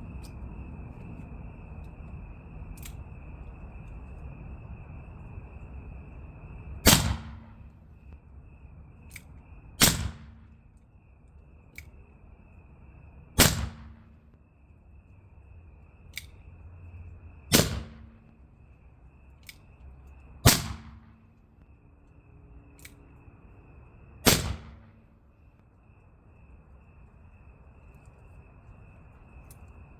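Ruger Old Army .44 cap-and-ball black-powder revolver fired six times, one shot every three to four seconds, with faint clicks between the shots. A steady high chirring of insects runs underneath.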